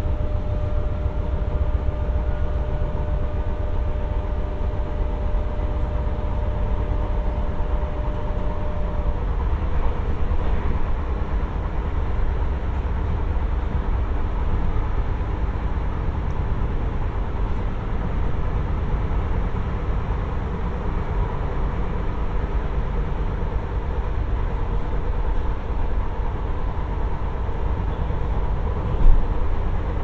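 Renfe class 447 electric multiple unit running along the line, heard from on board: a steady low rumble of wheels on rails with a few steady motor tones, one of which cuts off about nine seconds in. A single short knock near the end.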